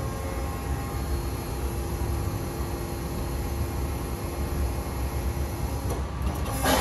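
Boy 35A hydraulic injection molding machine running, its pump motor giving a steady hum with a faint steady tone. A short sharp click near the end is the loudest sound.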